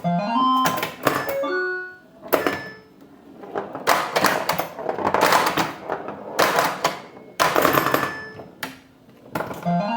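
Bally Paragon pinball machine in play: electronic tones and effects from its AS-2518-50 sound board, including a short rising tone sweep near the start that comes again near the end, mixed with sharp mechanical clacks of the playfield and longer noisy effects. The owner feels the repaired board's sounds are not quite right.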